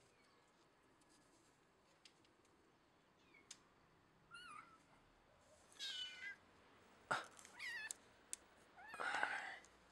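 A kitten mewing, high-pitched, about four times starting about four seconds in, with a few sharp clicks between the calls.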